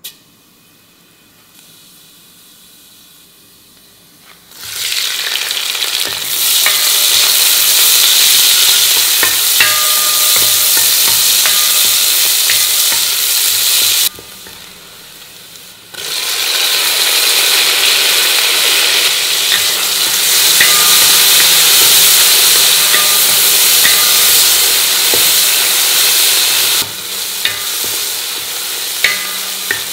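Sliced onions frying in hot ghee and oil in a wide metal kadai, a loud, steady sizzle, stirred with a wooden spatula that scrapes the pan. The frying is quieter at first and grows loud about four seconds in, and drops away briefly midway.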